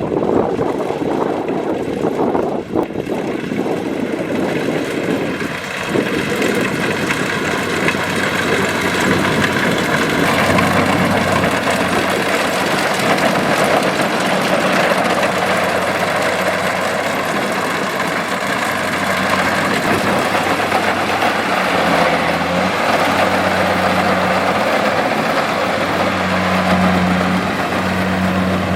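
Kubota DC-70 combine harvester's diesel engine running steadily while harvesting rice, with a steady low hum that comes through more clearly from about ten seconds in.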